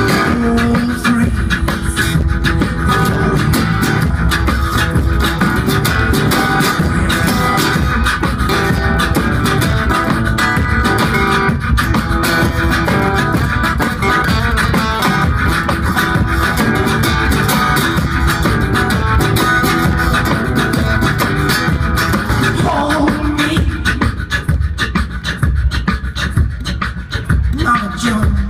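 Live beatboxing, with a driving vocal drum rhythm into a microphone, played together with a resonator guitar in a blues groove. Near the end the guitar drops back and the beatbox rhythm carries on more sparsely.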